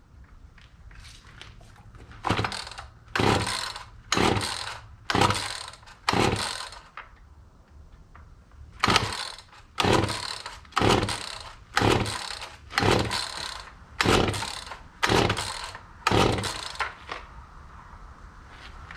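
Poulan Wild Thing two-stroke chainsaw being pull-started: five quick pulls on the starter cord about a second apart, a pause, then nine more. Each pull is a short whirr that fades at once, and the engine never catches.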